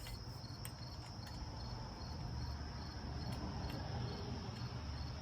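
Cricket chirping steadily, a high pulsing trill about three times a second, over a low hum, with a few faint clicks of a hand tool being handled.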